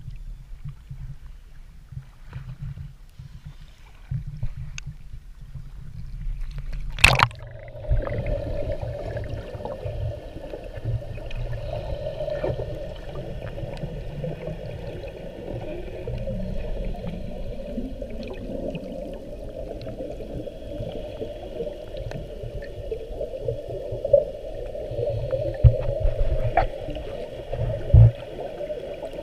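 Sea water lapping and sloshing at the surface, then a sharp splash about seven seconds in as the camera goes under. After that comes the muffled, steady hiss of underwater ambience heard through the camera's waterproof housing, with a few knocks near the end.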